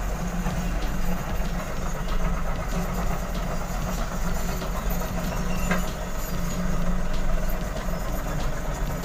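Kobelco crawler excavators on the move, their diesel engines running steadily under a continuous clanking of steel tracks, with one sharper knock about six seconds in.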